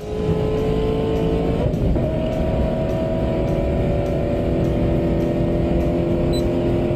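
Added engine sound effect of a racing vehicle accelerating: a loud, even engine sound whose pitch creeps up, steps higher about two seconds in, then holds steady at high revs.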